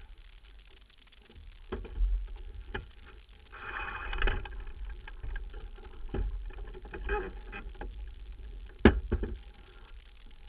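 Sailboat under way: wind buffets the microphone as a steady low rumble, with brief hissing rushes about 4 and 7 seconds in. Several sharp knocks and clatters come from deck hardware and lines as the crew handle them, the loudest near the end.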